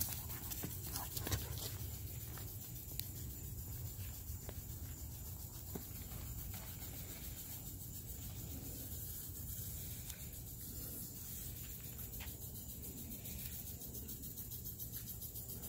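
Steady outdoor ambience of an insect chorus, a fine rapid high hiss, over a constant low rumble, with a few soft knocks in the first couple of seconds.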